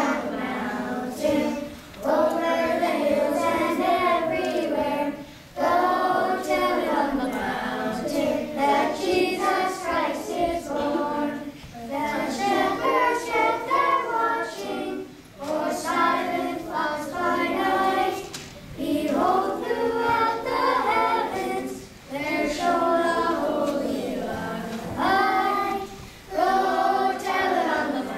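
Children's choir singing together, phrase by phrase, with short breaks between the lines.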